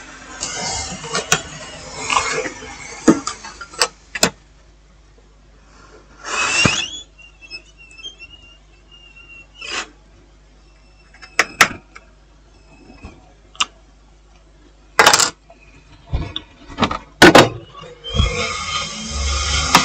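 Small metal tools clicking and tapping on a laptop motherboard while a shorted ceramic capacitor is removed from its 12-volt power rail. There are scattered sharp clicks, a short rushing burst about six and a half seconds in, and a faint high whine after that burst.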